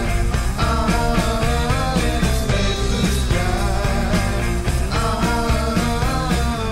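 Background rock music with a steady drum beat, bass and a bending lead melody.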